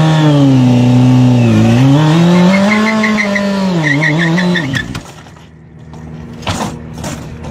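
Sport motorcycle engine revved hard while the bike stands still, its pitch rising and falling with the throttle, until the sound drops away suddenly about five seconds in. Near the end come two short, sharp noises as the bike lurches forward and goes down.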